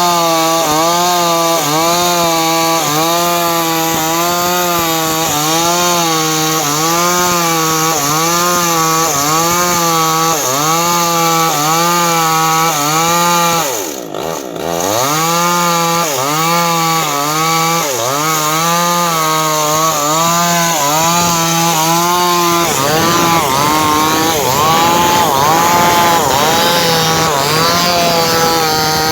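Two-stroke chainsaw running under load as it cuts through wood, its engine pitch dipping and recovering a little more than once a second as the chain bites. About halfway the engine drops off briefly and then comes back up, and near the end the pitch wavers less evenly.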